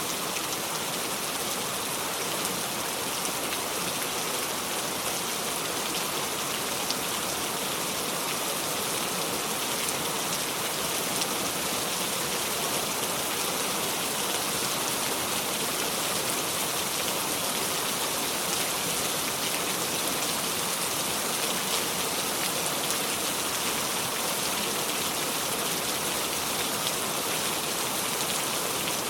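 Steady heavy rain falling on a surface, a constant even hiss with fine pattering drops and no thunder.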